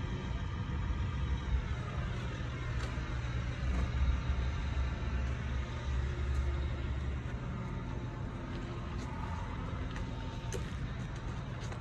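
Steady low engine rumble of a vehicle or machine, swelling about four seconds in and easing after about seven.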